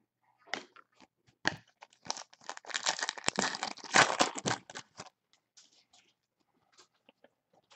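Foil trading-card pack wrapper crinkling and tearing as it is opened: a few scattered rustles, then a couple of seconds of dense crackling, then faint ticks as the cards are handled.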